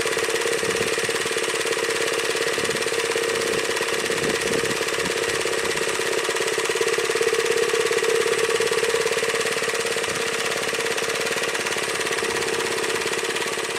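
Kioritz Spider Mower AZ851's engine running steadily, picking up a little speed for a couple of seconds about halfway through, then settling back.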